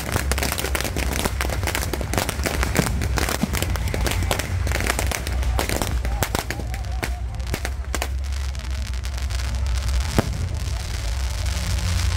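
Fireworks going off in a dense crackle of sharp pops from bottle rockets and firecrackers, thinning out after about six seconds. A steady low rumble runs underneath.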